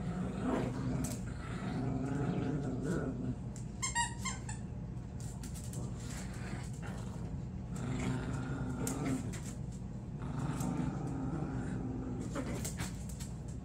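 Two small puppies, a Maltese and a Malshi, growling in play while tugging at a toy, in several low rumbling stretches. A brief run of high squeaks comes about four seconds in.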